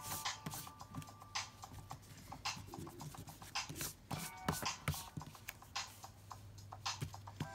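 A drawing tool scratching on paper in short, irregular strokes, over a faint electronic tune that plays in short bursts of notes and a steady low hum.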